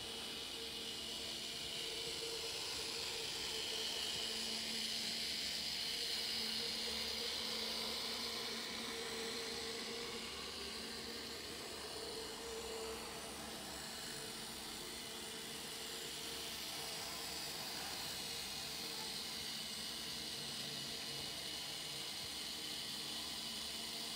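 Z-scale model trains running on the layout: a faint steady whirring hiss from the tiny locomotive motors and wheels on the rails, swelling for several seconds near the start, then settling.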